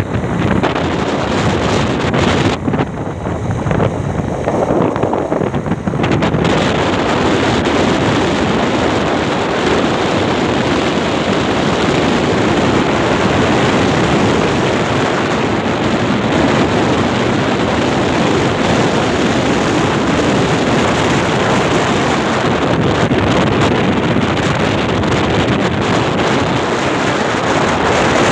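Wind rushing over a phone microphone on a moving vehicle, with road noise beneath. The sound is loud and steady, a little softer and duller for a few seconds early on.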